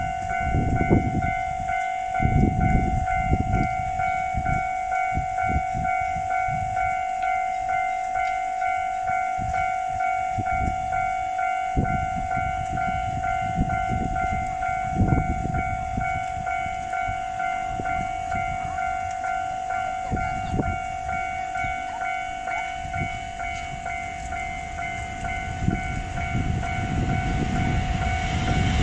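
Japanese level-crossing alarm ringing steadily, its electronic 'kan-kan' bell signalling that a train is approaching or passing. Low, uneven rumbling sounds beneath it.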